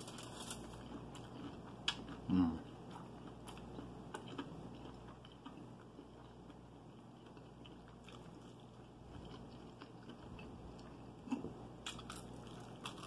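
Close-up eating of crispy fried chicken: bites into the breading at the start and again near the end, with chewing and scattered crisp crackles between.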